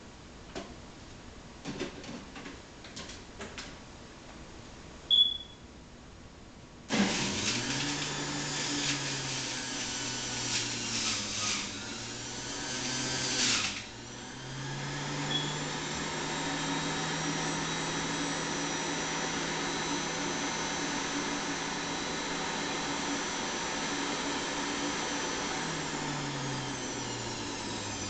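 Bullet Express juicer motor switching on about seven seconds in and juicing fruit: loud and rough, its pitch sagging under load for several seconds, then running steadily with the load off and slowing down near the end. Before it starts, a few small clicks and one short beep.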